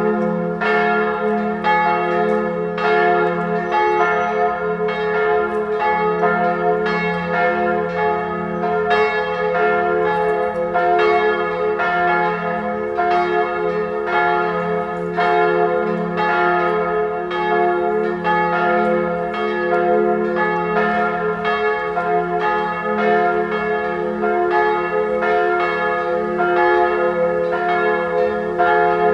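Full peal of three church bells ringing together: two 1979 Perner bells tuned f¹ and a♭¹, a minor third apart, with a small high b² bell ringing above them as a cymbal. Strikes follow one another several times a second over a steady hum.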